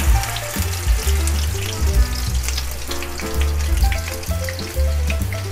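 A paste of onion, roasted dry coconut and tomato sizzling and crackling in hot oil, under background music with a bass line.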